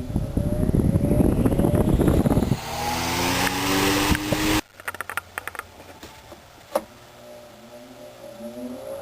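A loud, rough grinding noise for about two and a half seconds, then an electric motor's hum rising in pitch as it speeds up, cut off suddenly partway through. Fainter rising motor hum follows and builds again near the end.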